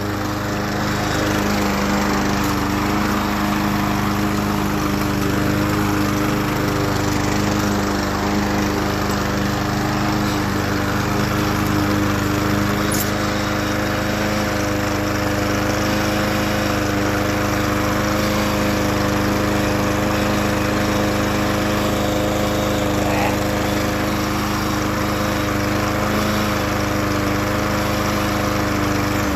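Riding lawn mower's small gasoline engine running steadily at a constant speed, left running to burn off oil in the cylinder after years of sitting. It cuts off right at the end.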